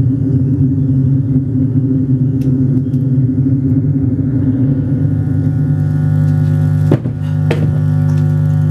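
Loud, sustained low drone of layered held tones from an amplified sound setup run through effects pedals. It settles into steadier tones partway through. Two sharp knocks come about seven seconds in.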